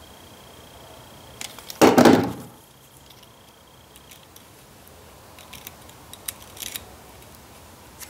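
Hand tools working on a Ford 2N front-mount distributor while its breaker points gap is being adjusted: one brief clatter about two seconds in, then a few light metallic clicks and ticks in the second half.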